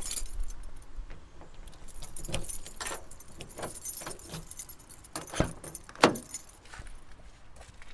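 A bunch of keys jangling and clicking as a person handles them at a car. Two louder knocks come about five and a half and six seconds in.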